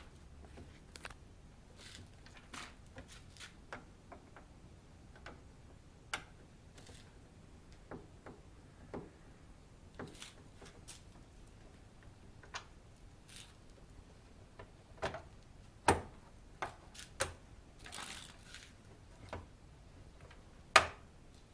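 Irregular light clicks and taps of parts and tools being handled during washing machine repair work, with a few louder knocks, the loudest about 16 and 21 seconds in.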